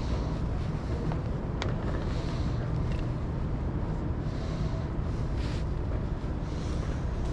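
Steady low rumble of a vehicle running, with a hiss that swells and fades every second or two and a single sharp click about a second and a half in.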